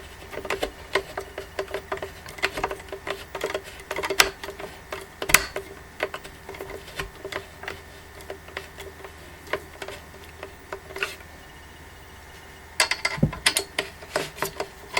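Irregular clicks, taps and knocks of a hand screwdriver and steel bracket being handled and worked against a screw, pausing briefly a little after the middle before resuming.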